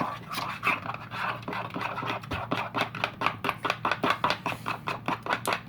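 A thick slime mixture being stirred briskly in a container, a quick run of scraping strokes about five a second.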